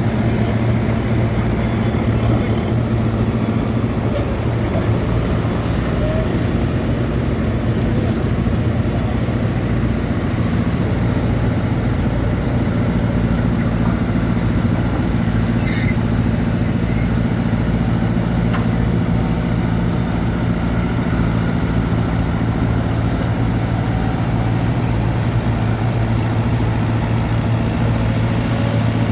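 Engine of a Weserhütte HW7 hydraulic excavator running at a steady speed, a continuous low hum.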